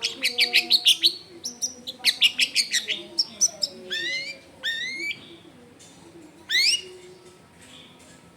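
Long-tailed shrike singing a song full of mimicked calls: a fast run of sharp, high chirps for about three seconds, then a few rising, sweeping whistles, the loudest one near the end.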